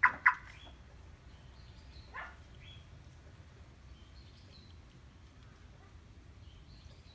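Car security answer-back siren giving two loud, short chirps about a third of a second apart, then a fainter chirp about two seconds later, confirming a remote central-locking command on a Honda Insight.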